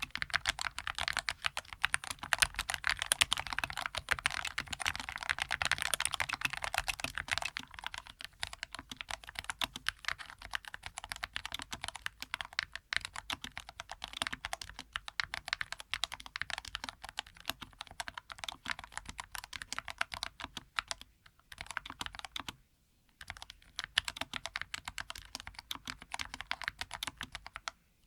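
Steady typing on a Skyloong SK61S keyboard with Gateron Yellow linear switches, first on its stock keycaps, then from about eight seconds in on round typewriter-style keycaps. The typing stops for about a second roughly three-quarters of the way through.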